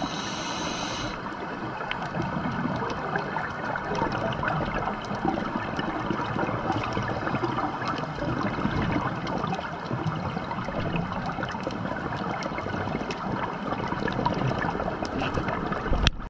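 Underwater ambience on a scuba dive: a steady rush of moving water flecked with many small crackling clicks, ending in a brief knock just before the sound cuts off.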